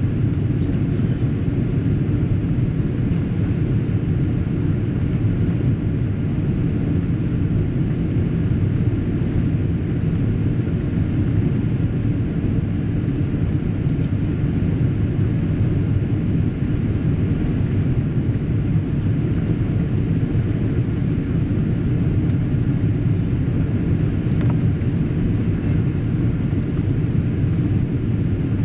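Boeing 777-200ER cabin noise on approach: a steady low rumble of engines and airflow, heard from a window seat over the wing.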